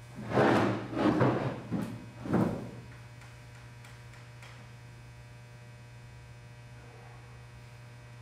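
A steady low hum throughout, with four or five short, loud rasping noises in the first three seconds, then only the hum.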